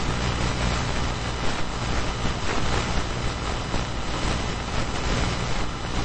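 Walkie-talkie radio static: a steady hiss with a low hum underneath.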